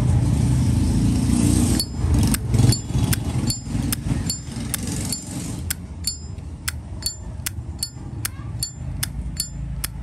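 A 1993 Zippo lighter's lid being flipped open and snapped shut over and over, starting about two seconds in. It gives sharp metallic clicks with a short ringing tone, about two or three a second, behind a steady hum of traffic.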